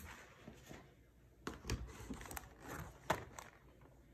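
Hands handling snack packaging in a cardboard box: short rustles and light knocks as a cardboard biscuit box is lifted out, with one sharper click late on.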